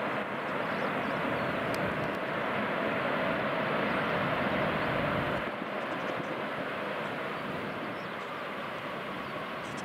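Jet engines of a four-engine Boeing 747 freighter, a steady roar that builds to its loudest about halfway through and then slowly fades as the aircraft passes.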